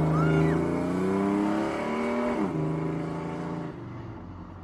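Pickup truck engine running as the truck drives away, fading steadily with distance; the engine note drops about two and a half seconds in.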